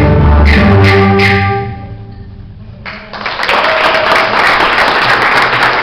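A live ensemble's closing held chord that stops and dies away, then the audience breaking into applause about three seconds in, which carries on steadily.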